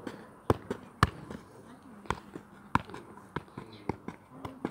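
Football being juggled with the feet, each touch a sharp knock on the ball, about ten irregular touches at roughly two a second.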